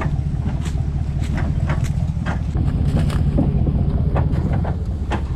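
Chevrolet Silverado ZR2 pickup crawling slowly over a rocky trail: a steady low engine rumble, with irregular crunches and knocks from rocks and dry leaves underfoot and under the tyres.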